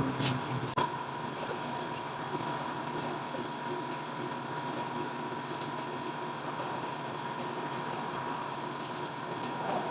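Steady mechanical running noise with a constant thin hum, with one sharp click just under a second in.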